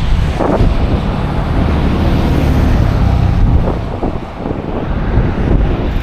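Wind buffeting the microphone: a steady, uneven low rumble, easing a little about four seconds in.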